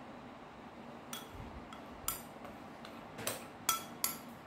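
A metal spoon tapping and clinking against a ceramic bowl to knock flour out of it: a few light clicks, sparse at first, then coming faster and louder near the end.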